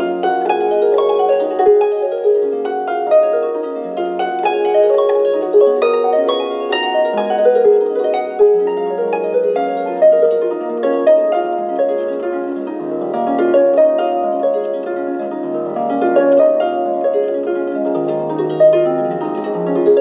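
Instrumental music of rapid plucked-string notes played back through a small 1990s Realistic weatherproof indoor/outdoor speaker in a plastic enclosure, with almost no deep bass.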